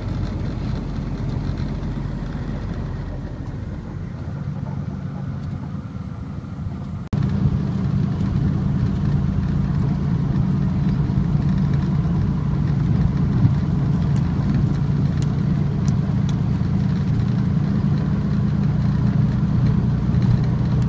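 Snowplow truck's engine running steadily, heard from inside the cab while driving, a low even drone. About seven seconds in the sound breaks off for an instant and comes back louder.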